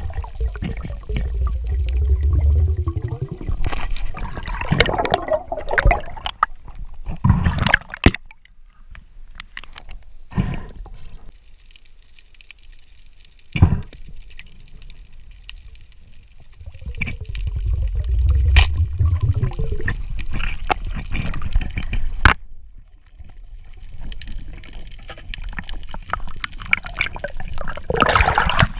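Water gurgling and rushing around an underwater camera as it moves, in two stretches of low rumbling with a quieter spell between, and a few sharp knocks.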